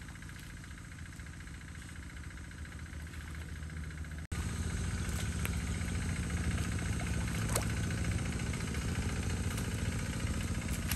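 Small engine of the pond's water pump running steadily, with a fine, even pulsing in its hum; it gets louder after a cut about four seconds in. A few sharp clicks come over it in the second half.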